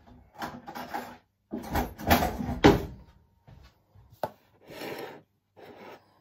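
Bumps and scrapes of a knife and fork being picked up and handled at a table, with one sharp click about four seconds in.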